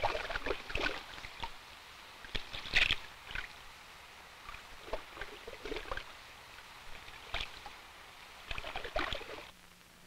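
Water splashing and sloshing in short, irregular bouts as wading egrets step and flap through shallow water, the loudest splash about three seconds in.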